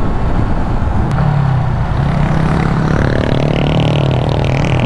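Motorcycle engine running with a steady rush of wind and road noise, picked up by a microphone worn by the rider. About a second and a half in, the engine note comes through more clearly and wavers a little.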